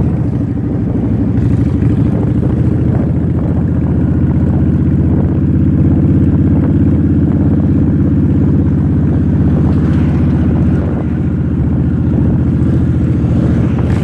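Cruiser motorcycle engine and exhaust running steadily at an even speed while being ridden, heard from the rider's seat; the engine eases off slightly about eleven seconds in.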